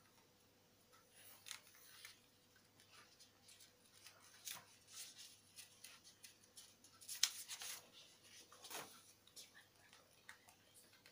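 Faint paper handling: a sheet rustling and crinkling as it is moved and set aside, with scattered small clicks and taps, one sharper click about seven seconds in and a short swish near the end.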